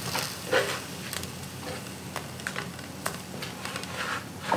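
Frozen diced cabbage pieces being put by hand into an air fryer basket: scattered light clicks and taps as the frozen chunks knock against the basket and each other, over a faint steady hum.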